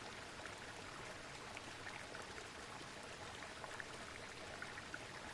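Waterfall sound: steady rushing and splashing of falling water.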